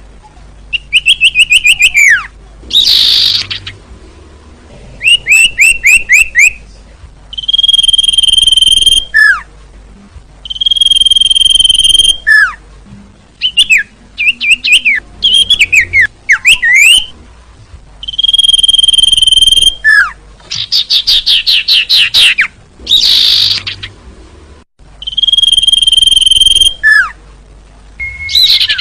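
Sirtu (cipoh, common iora) song from a bird-call recording: long steady high whistles of about a second, repeated every few seconds, alternating with quick falling whistles and fast rattling trills.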